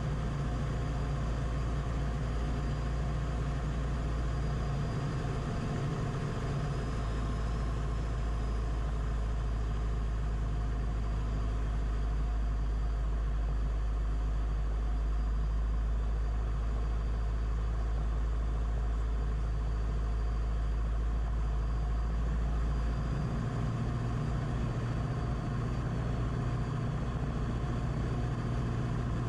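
Cockpit noise of a Beechcraft Musketeer light aircraft in flight: its piston engine and propeller running with a steady drone, mixed with the rattle of the loose propeller filter on the camera. About 23 s in, the engine note changes.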